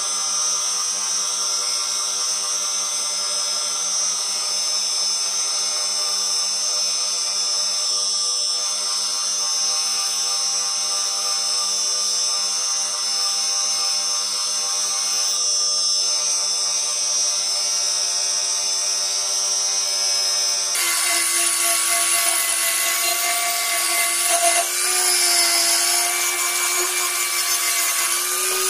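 Bench grinder running steadily with a pink abrasive wheel as a cleaver blade is held against it. About 21 seconds in, it gives way abruptly to an angle grinder with a red sanding disc running, its whine wavering slightly.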